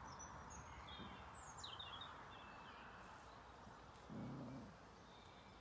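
Faint birds chirping and calling over a quiet outdoor background. About four seconds in, a brief low call is heard.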